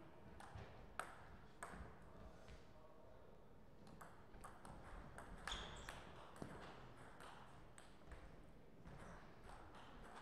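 Table tennis ball striking the players' bats and the table in a rally: a quick series of sharp clicks over about four seconds, loudest in the middle, after a couple of single ball taps about a second in.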